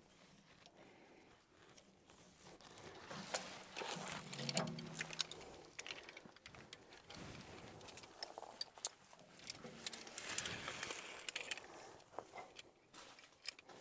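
Faint, scattered clicks, clinks and rustling of fencing gear being handled: rope, clamp and wire fence.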